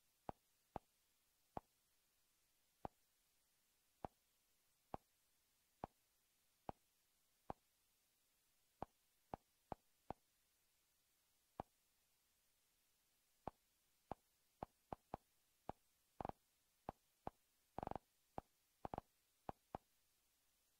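Google TV interface navigation sounds on a Chromecast: short clicks, one each time the highlight moves between menu tiles. They come at irregular intervals, faster in the second half, with two slightly longer ones about three-quarters of the way through.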